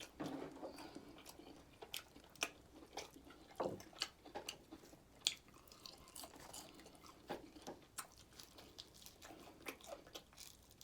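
Close-up chewing and biting into fried chicken, with irregular crunches and wet mouth clicks.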